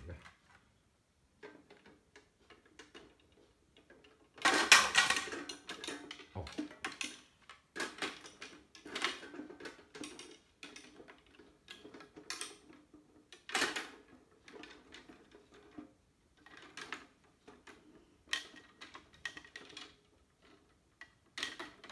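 Handling noise from a carbon fishing rod: scattered light clicks and knocks, with a louder rustling clatter about four to five seconds in and a dull thump soon after.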